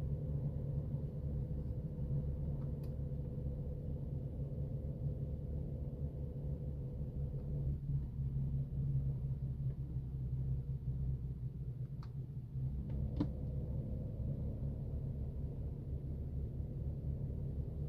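BMW M4 air-conditioning compressor whining with a steady thin tone over a low hum, then the whine drops out about eight seconds in. The whine is the sign of a failing AC compressor.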